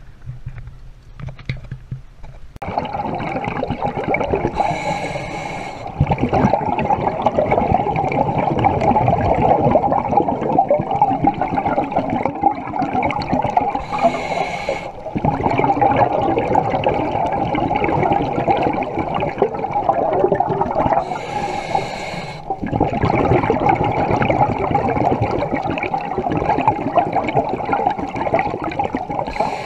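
Scuba breathing underwater, picked up through a submerged camera: a steady bubbling rush of regulator exhaust bubbles. A brighter hissing surge comes with each breath about every seven to eight seconds. It starts a couple of seconds in.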